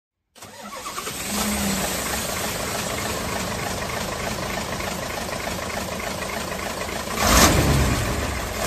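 Truck engine starting and running, with a louder surge near the end.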